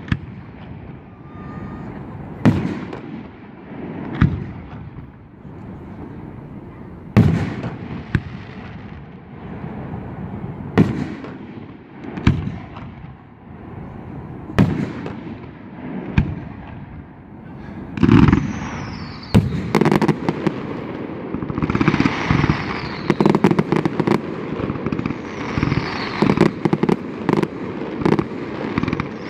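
Fireworks display: single aerial shell bursts going off one to three seconds apart, then, about two-thirds of the way through, a dense run of rapid crackling bursts.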